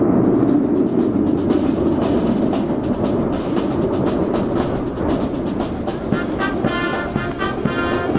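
Jet fighters flying a formation display overhead: a heavy, steady roar that slowly fades. About six seconds in, a military brass band starts playing short, rhythmic notes.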